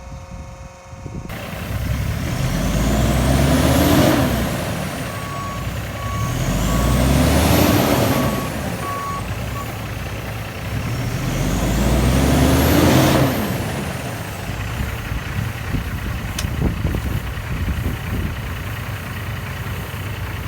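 Heavy engine-driven vehicles passing close by three times in a row, each one swelling up and fading away. Between about five and ten seconds in there is a short run of evenly spaced beeps.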